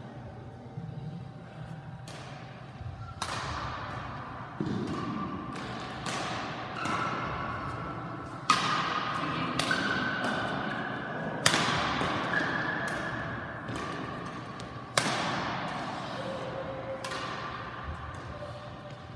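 Badminton rally: rackets striking the shuttlecock in a string of sharp, echoing cracks a second or two apart, with squeaks from the players' court shoes between the hits.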